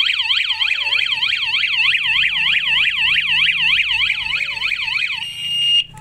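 Wireless Wi-Fi strobe siren of a smart alarm system sounding loudly: a fast rising-and-falling electronic wail, about four sweeps a second. It has been set off by the armed system's rolling-shutter sensor being opened. About five seconds in the wail stops and gives way to a brief steady tone.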